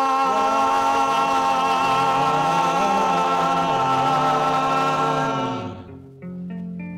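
Doo-wop vocal group holding the song's final harmony chord on a 45 rpm record, a low bass voice moving underneath, until it fades out about five and a half seconds in. A few quieter guitar notes follow to close the record.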